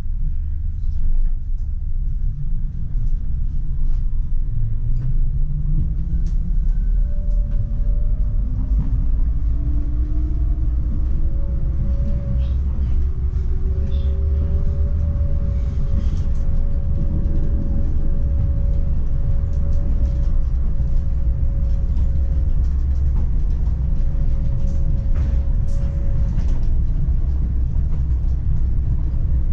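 PESA Swing 122NbT tram rumbling along its rails, heard from the driver's cab, with the electric traction drive whining and rising steadily in pitch over about twelve seconds as the tram accelerates, then holding level. A second steady tone sits above the whine through the middle of the stretch.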